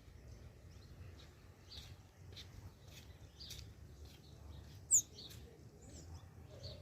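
Small birds chirping with short, repeated calls, and one much louder, sharp, high call about five seconds in, over a low steady rumble.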